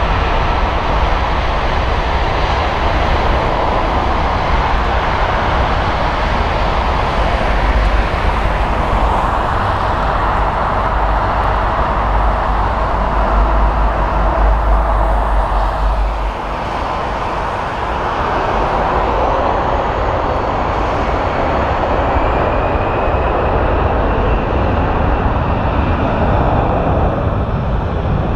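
Twin jet engines of a Condor narrowbody airliner running steadily at high power as it lines up and rolls for takeoff. A deep rumble drops off abruptly about halfway through, and a faint rising whine builds near the end as the jet gathers speed.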